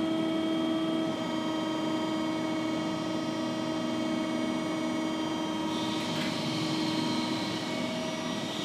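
Finn-Power crimping machine's hydraulic pump running with a steady, even hum while the dies close on a steel tube, a hiss joining in about six seconds in.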